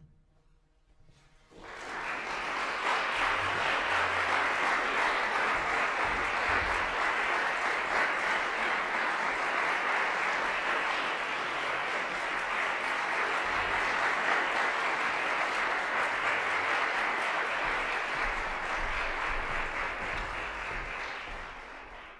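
Audience applauding. The clapping breaks out suddenly about a second and a half in after a moment of quiet, holds steady, and fades away near the end.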